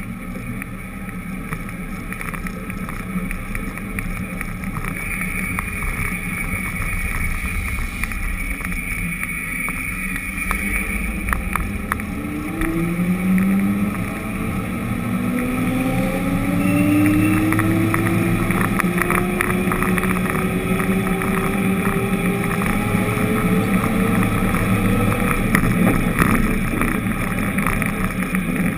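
Motor vehicle engine running under steady road and wind rumble. About twelve seconds in, the engine note climbs quickly, then it rises slowly and steadily for about ten seconds as the vehicle speeds up.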